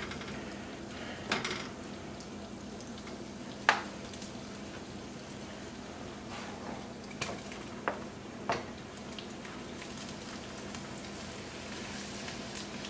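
Chopped onions sizzling in hot butter and olive oil in a frying pan, a steady hiss, with a few sharp knocks as the plastic bowl and wooden spoon strike the pan while the onions are scraped in.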